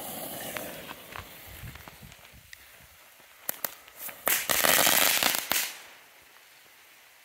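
Two crackling salute ground fireworks lit together. Their fuses hiss and sputter, then a few sharp pops come about three and a half seconds in, followed by a dense burst of crackling for about a second and a half that dies away.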